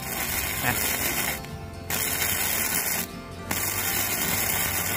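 KOBE MIG 235K gasless flux-core MIG welder's arc crackling as it lays a bead on steel, in three runs with short breaks about one and a half and three seconds in as the trigger is released and pulled again.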